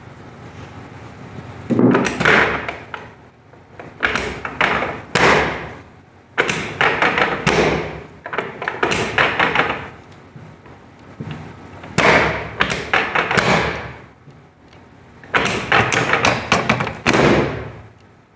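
Chiropractic drop table at work: about six bursts of quick thuds and clacks a few seconds apart, as its padded sections drop under the adjuster's thrusts.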